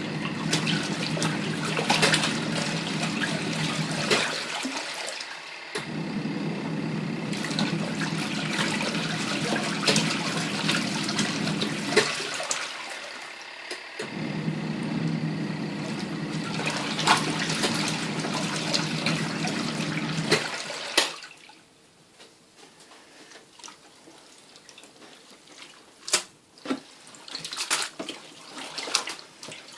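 Twin tub washing machine's wash-tub motor running, churning water and laundry in runs of several seconds with short pauses between them, as the wash action reverses. About 21 seconds in the motor stops, leaving faint splashing and drips.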